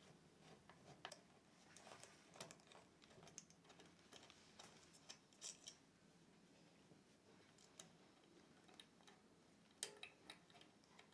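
Near silence with faint, scattered small clicks and taps of metal parts as an industrial ruffler presser foot is taken apart by hand to change its die; the loudest click comes near the end.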